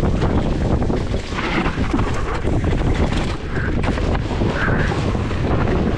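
Wind buffeting the microphone of a camera on an enduro mountain bike descending at speed, over a constant clatter of the bike and tyres on rough trail.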